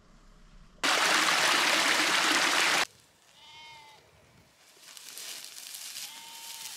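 A loud, steady rushing noise starts and stops abruptly, lasting about two seconds near the start. A sheep then bleats twice, a little past the middle and again near the end, over a soft hiss that builds toward the end.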